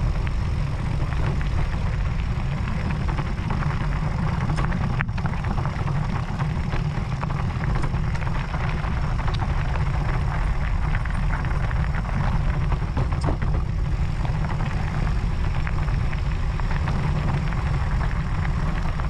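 Wind buffeting an action camera's microphone on a moving e-mountain bike: a steady low rumble, with the rough crunch of tyres rolling over gravel on top.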